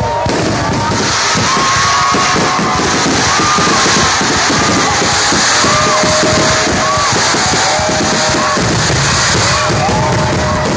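Fireworks going off in a rapid barrage of bursts and crackling, with a hiss of crackle from about a second in until near the end, mixed with music that carries held tones.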